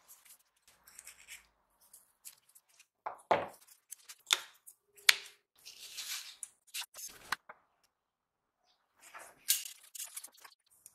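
Hand-work noises as parts are fitted to a motorcycle handlebar and its brake lever: irregular clicks, scrapes and rubbing, with the sharpest click about five seconds in.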